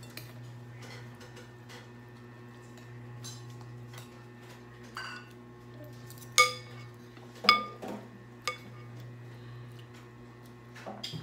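Metal serving spoon clinking and scraping against a glass serving bowl, with two loud ringing clinks a little past the middle and a softer one just after. A steady low hum runs underneath.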